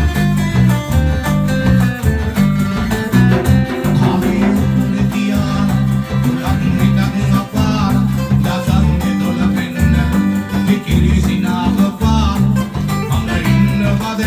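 Calypso band playing live: strummed acoustic guitars, electric bass guitar and a hand drum keep a steady rhythm, and male voices sing from about four seconds in.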